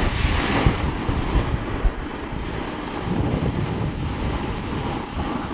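Wind rumbling on the microphone, with the hiss of a snowboard scraping over hard-packed snow during the first second or so.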